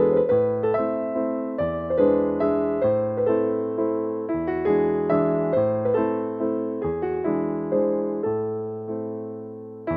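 Slow, gentle piano background music: notes struck about twice a second, each fading away, over chords that change every two to three seconds.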